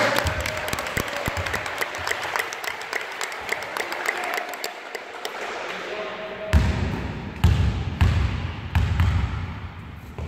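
Scattered clapping echoing in a sports hall, then a basketball bounced several times on the wooden court floor as a player dribbles before a free throw.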